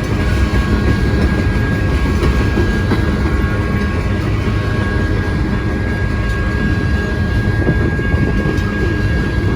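Freight grain train rolling past: a steady low rumble of steel wheels on rail, with a thin, steady high whine over it.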